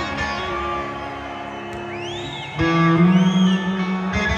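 Live rock band with electric guitars playing through an arena PA. A loud, low sustained note comes in a little past halfway.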